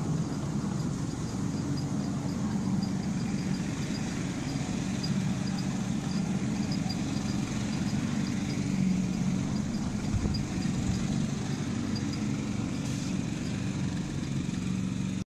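Miniature railway train running along the track: the locomotive's small engine hums steadily, with a faint regular high ticking through the first half.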